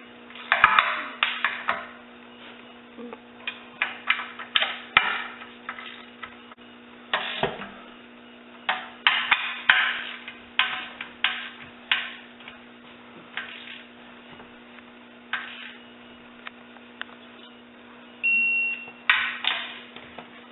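Torque wrench ratcheting in short runs of sharp ticks as the transmission pan bolts are brought up gradually to 13 foot-pounds. A short single beep sounds near the end.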